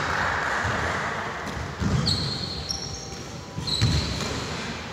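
Basketball bouncing on a hardwood gym court during play, with a few dull thumps, and two short high sneaker squeaks about two seconds in and again near the end.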